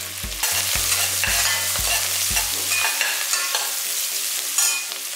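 Sliced onions and coriander sizzling in hot groundnut oil while being stirred and sautéed in a pan, a steady frying hiss. A regular low thump about twice a second runs under it for the first three seconds.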